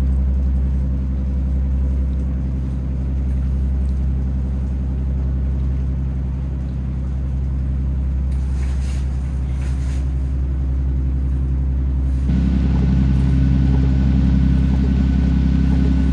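Motor yacht's engine running steadily underway, a low drone with a steady hum. About twelve seconds in the sound steps up, with a higher whine added, and drops back near the end.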